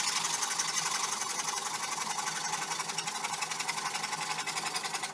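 Handsaw cutting through a wooden pallet board, steady rasping back-and-forth strokes.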